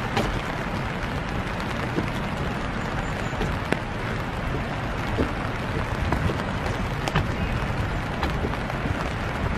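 Steady hiss of winter rain falling, with a few sharp, irregular taps scattered through it.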